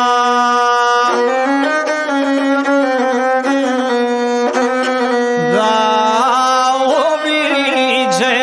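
Gusle, the single-string bowed folk fiddle that accompanies Serbian epic song, playing a continuous melody with quick ornamental turns.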